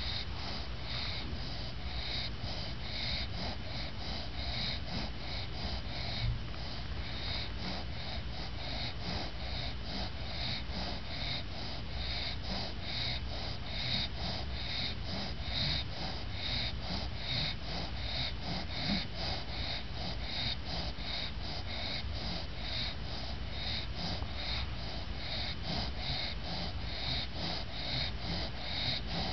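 English bulldog snoring in a quick, even rhythm with no pauses, still snoring while awake with her eyes open, exhausted.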